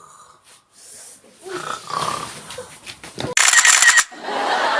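A man snoring loudly, in rough, growling snores. The loudest is a harsh blast about three and a half seconds in, followed by a long rasping sound near the end.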